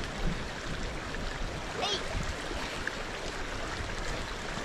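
Small grassland stream flowing steadily, with a brief high gliding note near the middle.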